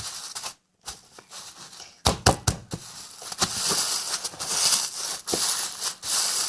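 Wet, soap-soaked sponge squeezed and squished inside a plastic freezer bag: crinkling plastic and sloshing, squelching liquid, with a few sharp clicks about two seconds in.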